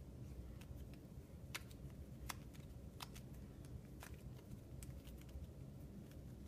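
Hands kneading and squeezing a lump of soft modeling clay: faint rustling with a handful of small sharp clicks, over a low room hum.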